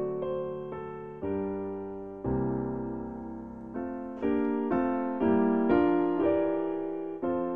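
Background piano music: single notes and chords struck one after another, each fading away before the next.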